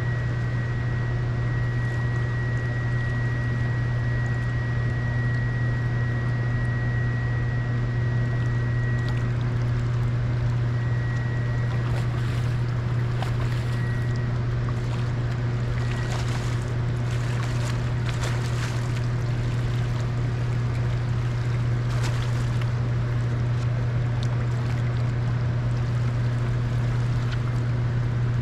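Boat motor running steadily with a low hum. A thin high whine comes and goes through the first half, and scattered light clicks and knocks are heard in the middle stretch.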